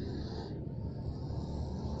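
Snoring during sleep: a low, rough snore carried on breath, with a breathy hiss that ends about half a second in and starts again just after.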